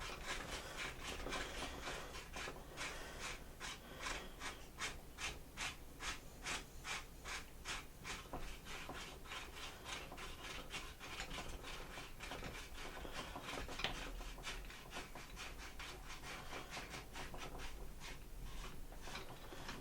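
Rhythmic rasping rub from hands working the parts of a carbon fibre camera jib arm, about two to three strokes a second, stronger in the first half and weaker later.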